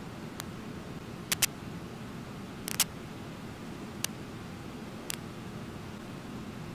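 Steady roar of the Brooks River waterfall, with sharp clicks standing out above it every second or so, some in quick pairs.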